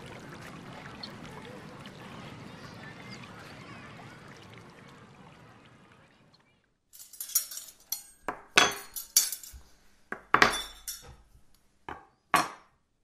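A steady noise haze that fades away, then, after a moment of quiet, a run of sharp clinks and clatters of glassware and dishes on a table, about seven strokes over five seconds.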